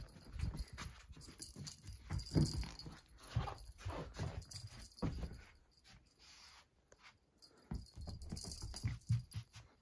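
Short thumps, scratching and fabric rustling as a cat pounces and scrambles after a wand toy on upholstered furniture and rugs, in irregular spurts with a quieter pause just past the middle.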